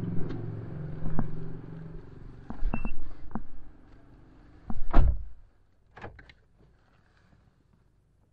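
Car engine idling, then switched off about two seconds in. It is followed by a short beep, scattered clicks and knocks, a loud thump about five seconds in, and two light clicks.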